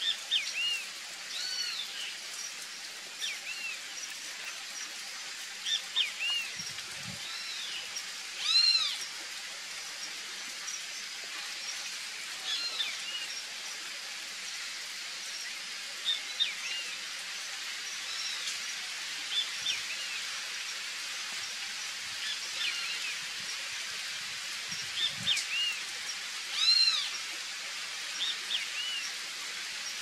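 Steady rain hiss with birds calling over it: short notes that rise and fall, repeated many times, some in quick pairs, loudest about nine and twenty-seven seconds in.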